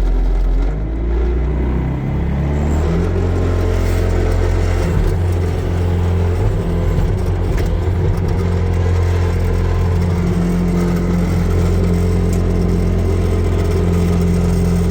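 Heavy-equipment diesel engine running, its speed stepping up about two seconds in and then holding steady.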